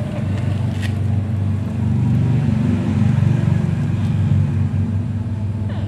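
A mother cat purring steadily while nursing her newborn kittens, a low, even hum that swells a little in the middle.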